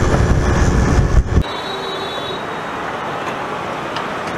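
Wind buffeting a helmet-mounted microphone over a motorcycle's engine while riding at speed. About a second and a half in, the rumble cuts out abruptly, leaving a steadier, quieter road hiss with a faint thin high whine.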